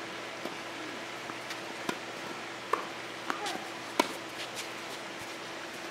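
Tennis ball being struck by rackets and bouncing on the court during a doubles rally: a series of sharp pocks, with the loudest hit about four seconds in.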